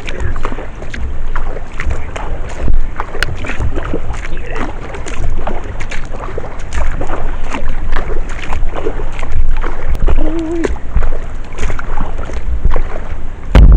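Kayak paddle strokes: the blades dip and splash in irregular strokes, water sloshing along the hull, with wind rumbling on the microphone.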